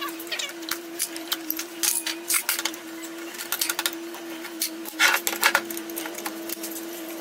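A small motor hums steadily at one pitch while irregular sharp clicks and scraping strokes sound over it, a cluster of louder ones about five seconds in.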